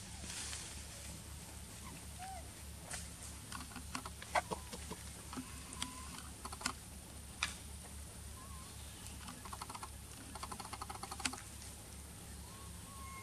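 Macaques moving over dry leaf litter: scattered sharp clicks and crackles, with a quick run of ticks near the end, over a steady low hum. A few faint short chirps are heard now and then.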